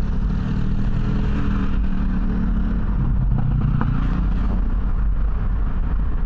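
A car driving, heard from inside the cabin: a steady low rumble of engine and road noise, with an engine drone through the first few seconds that drops in pitch about three seconds in.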